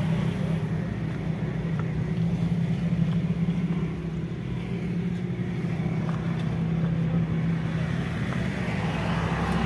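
A motor vehicle's engine running steadily, a low even hum with no change in pitch.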